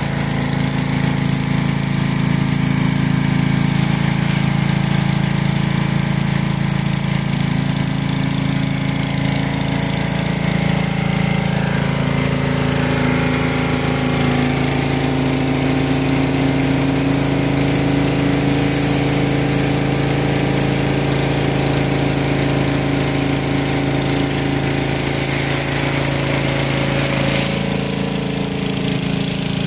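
Gas-engine pressure washer running steadily, with the hiss of water jetting from a surface cleaner onto concrete.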